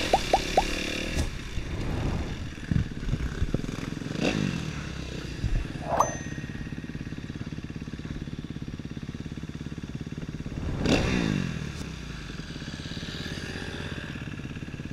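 Motorcycle engines running, with a few sharp knocks in the first seconds and a louder swell about eleven seconds in as the engine note rises and falls.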